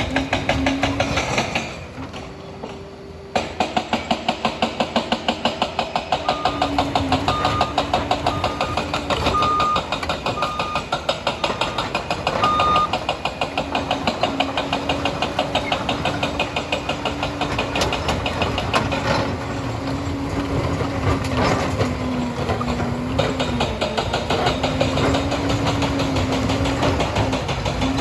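Liebherr 746 crawler dozer's diesel engine running with a fast pulsing beat. About two seconds in it goes quieter for about a second, then comes back, and in the middle a reversing alarm beeps about seven times.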